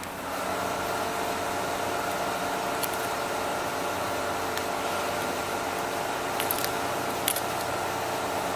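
Steady machine hum with several fixed tones that switches on at the start, with a few light sharp clicks from metal template clamps being handled.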